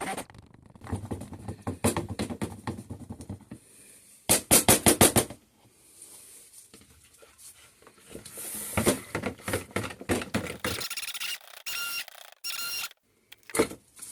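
Stick blender working soap batter in a container, with scattered clicks and knocks, a quick run of loud knocks about four seconds in, and two short whirring bursts near the end.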